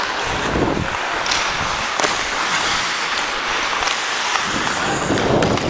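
Ice hockey skate blades scraping and carving on rink ice, an even hiss, with a few sharp clacks from sticks and puck.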